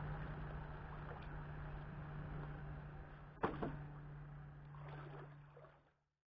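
A steady low hum over faint noise, with one sharp click about three and a half seconds in; the sound cuts off abruptly near the end.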